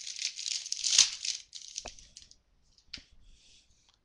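A trading-card pack's foil wrapper crinkling and crackling as it is handled and torn open, with a few light clicks. The crinkling dies away after about two seconds.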